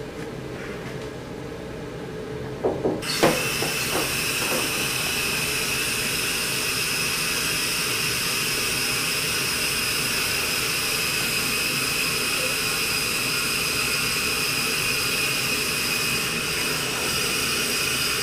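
Compressed CO2 gas hissing steadily through the line into the closed rat cage. It starts suddenly about three seconds in, after a low hum and a few knocks.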